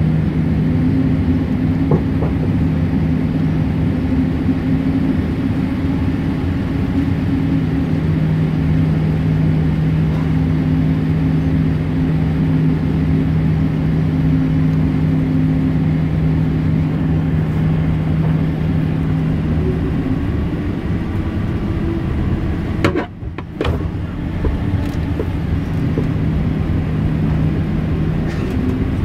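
Cabin noise of a Boeing 787-8 taxiing on GE GEnx engines at taxi power, heard from a window seat: a steady drone with a low hum. The sound cuts out for about half a second near the end.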